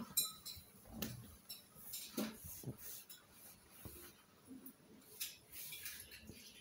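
Light, scattered taps of a baby's hands and knees on a hardwood floor as she crawls, with a short vocal sound from the baby about two seconds in.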